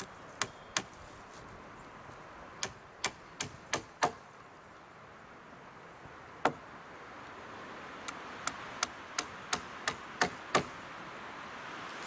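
Hammer blows on a rough wooden fence slab: two quick strikes near the start, a run of five a few seconds in, a single blow around the middle, then a steady run of eight at about three a second near the end.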